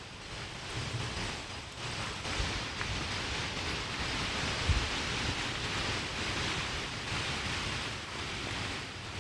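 Wind noise on the microphone outdoors: a steady rushing hiss with an unsteady low rumble, and a brief low bump about halfway through.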